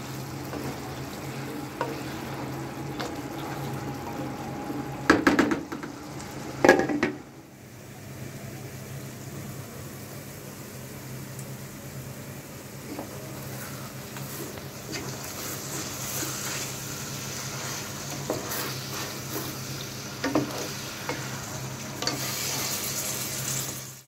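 Beef pieces with onions sizzling in a pan as they are stirred with a spoon, the spoon clattering against the pan a few times, at about five and seven seconds in and again near the end.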